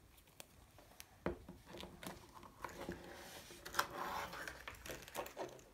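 A child's fingers prying open a surprise egg's plastic toy capsule: scattered small plastic clicks and soft rustling of handling.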